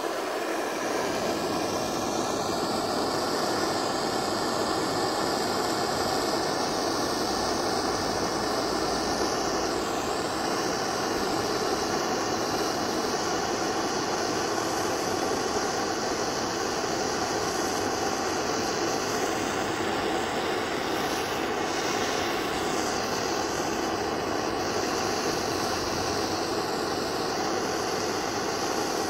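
Handheld gas blow torch running with a steady rushing hiss, its flame playing on a burning foam stress ball.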